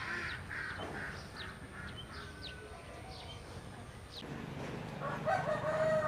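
A rooster crowing: the end of one crow at the start and a second long crow near the end. Small birds chirp in short, quick falling calls in between.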